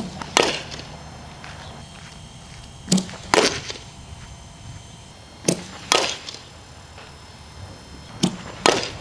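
Repeated softball drill impacts: four pairs of sharp cracks, the two in each pair about half a second apart, with the pairs coming about every two and three-quarter seconds.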